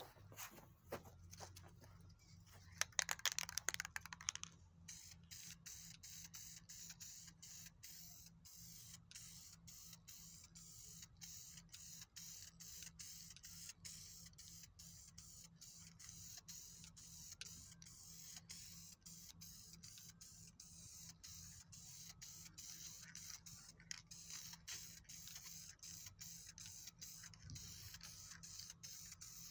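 Aerosol spray paint can hissing steadily as paint is sprayed, the hiss broken by short regular dips two or three times a second. A louder, brief noise comes about three seconds in, before the spraying starts.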